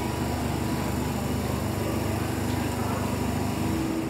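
London Underground 1996-stock Jubilee line train standing at the platform with its doors open, its on-board equipment giving a steady mechanical hum: a low drone with a few held tones over a constant hiss.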